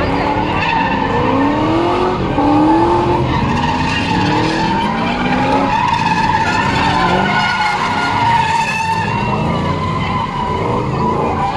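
Several drift cars sliding in tandem, their engines revving up and down over and over, with the tyres squealing and skidding throughout.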